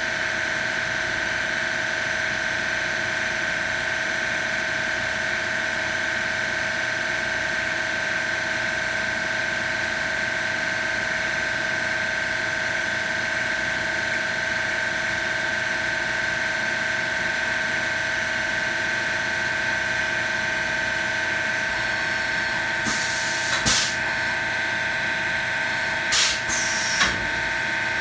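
Milltronics RW15 CNC vertical machining center running with a steady high whine made of several tones. In the last few seconds, two or three short, louder bursts of noise come in as the spindle head moves.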